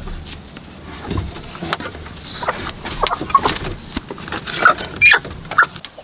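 Hen squawking and clucking in several short calls in the second half, over rustling straw and small knocks as eggs are taken from a straw nest box.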